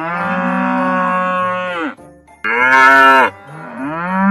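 Three long cow-like moos: one of nearly two seconds, a shorter, louder one about two and a half seconds in, and a third starting to swell near the end.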